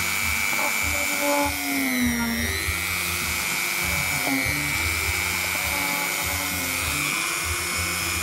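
Handheld rotary tool running with a steady high whine while it works the edge of a leather cap. Its pitch sags briefly about two seconds in as it bears on the leather.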